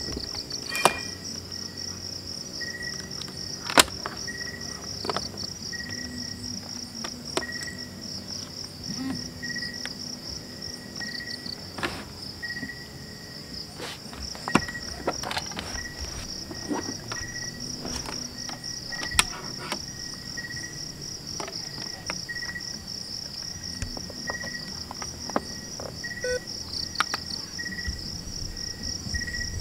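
Crickets chirping in a steady high trill, with a second, lower chirp repeating about every three-quarters of a second. Scattered sharp clicks and knocks come from cables and plugs being handled at a table.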